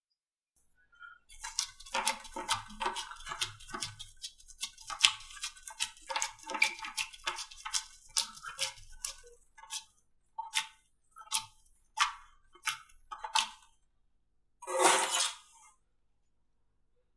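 Slime being pressed and poked by hand, giving a dense run of crackling clicks and pops, then separate sharp clicks about every half second, and one longer, fuller squish near the end.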